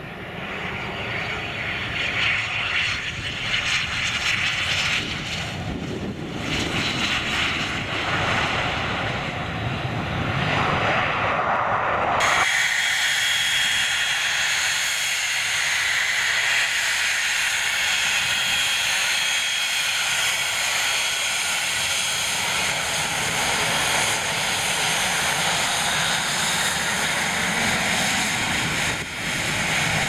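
Distant business-jet engine noise under gusting wind on the microphone. About twelve seconds in, it switches abruptly to a Cessna Citation XLS taxiing close by, its twin turbofans idling with a steady high whine.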